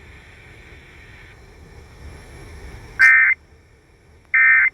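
Emergency Alert System end-of-message data bursts: two short, identical bursts of high, buzzy digital tones about a second apart, after a few seconds of faint hiss. They signal the end of the severe thunderstorm warning broadcast.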